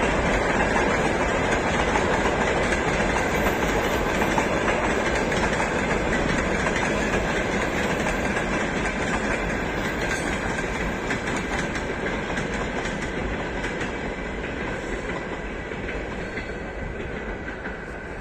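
A train's wheels clattering over the rail joints as the cars roll past. The clatter fades slowly toward the end as the train moves away.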